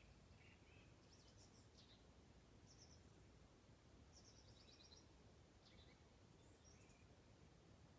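Faint songbirds chirping and trilling in short, high phrases every second or so, with a longer quick trill about four seconds in, over a low steady background rumble.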